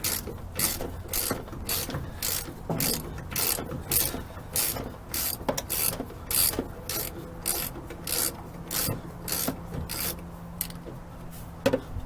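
Socket ratchet on a long extension being swung back and forth to turn a nut, its pawl clicking in an even rhythm of about three strokes a second. The rhythm stops near the end with one sharper click.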